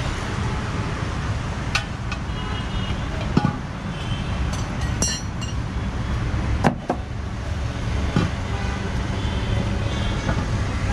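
Steady rumble of road traffic, with a few sharp knocks and clicks over it, the loudest about seven seconds in.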